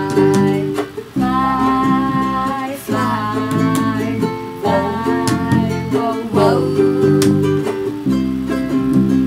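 Music: a child singing over a strummed small acoustic guitar.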